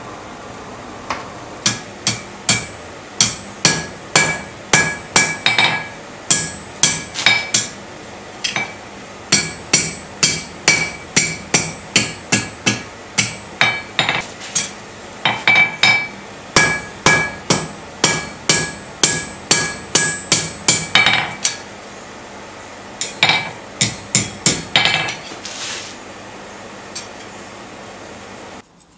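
Hammer blows on hot steel over an anvil horn, about two a second in four runs with short pauses, each with a clear ringing note from the anvil: a tong arm being bent and shaped over the horn.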